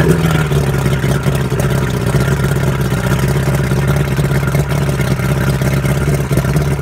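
Mercury 125 two-stroke outboard motor running steadily at an even pitch.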